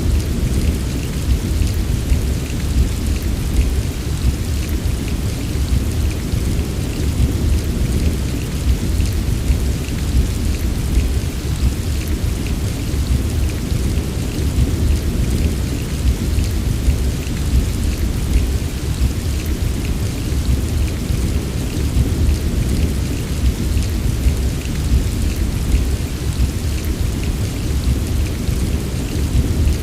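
Steady heavy rain pattering on a surface, with a constant low rumble underneath.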